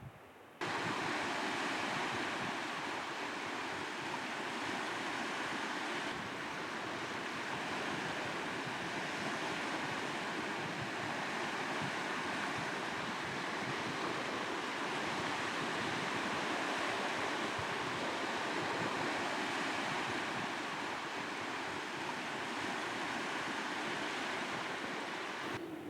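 Steady wind rushing through trees, an even rush that cuts in suddenly about half a second in.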